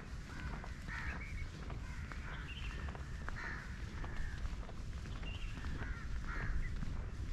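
Birds calling outdoors, a run of short harsh calls repeating every half second to a second.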